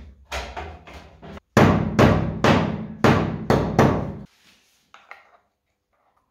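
Repeated hammer blows on sheet metal, about two a second, each with a short metallic ring, getting louder after about a second and a half and stopping abruptly a little over four seconds in. A couple of faint knocks follow.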